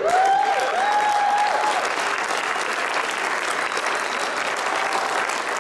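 A crowd applauding and cheering, with a few loud held whoops in the first two seconds.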